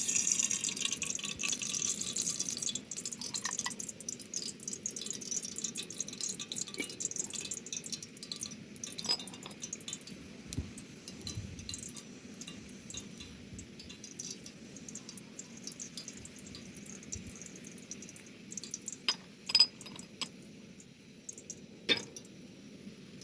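Sizzling and crackling of food frying in a pan, loud at first and dying down over about ten seconds, with scattered crackles after that. A few sharp metal or glass clinks near the end, like a utensil striking the pan.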